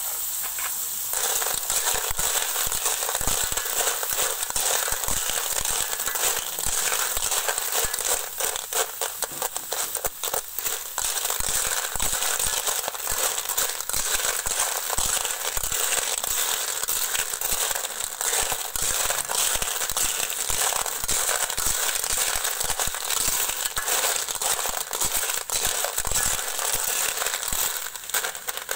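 Cockles in their shells sizzling and crackling as they fry in a hot metal wok, with a steady hiss full of small pops and clicks. Near the end a ladle stirs them and the shells clatter against each other and the pan.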